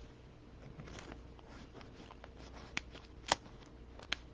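Trading cards being handled and slid into plastic card sleeves: soft rustling of card and plastic with a few sharp clicks and taps, the loudest about three seconds in.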